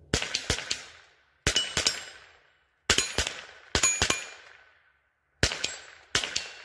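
Rossi RS22 semi-automatic .22LR rifle firing a string of shots with CCI Standard 40-grain standard-velocity rounds, some in quick pairs and threes and others a second or more apart, each shot with a short echo dying away. The blowback action cycles every round without a failure.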